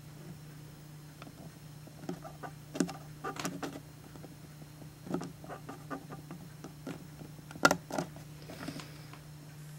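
Indoor room noise: a steady low hum with scattered light knocks and clicks, the loudest sharp knock about three-quarters of the way through.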